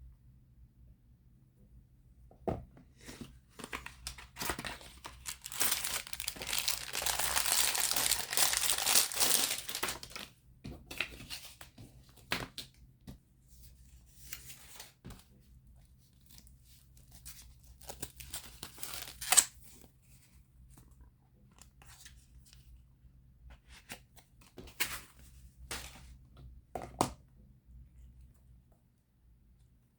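Packaging being torn open and crinkled by hand, a few seconds of continuous tearing and rustling, with scattered sharp clicks and taps before and after.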